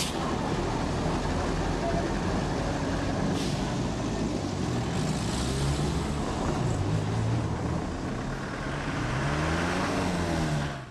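Street traffic: a motor vehicle's engine running with a steady low rumble, its note rising over the last couple of seconds as it pulls up the hill. A short click right at the start and another about three and a half seconds in.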